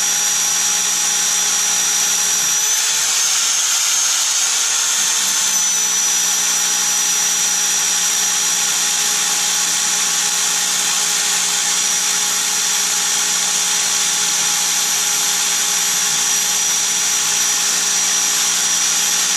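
Red corded rotary hammer drill running continuously, boring down with a 12 mm bit into a grey mineral surface. Its pitch lifts slightly about three seconds in, then settles back a couple of seconds later.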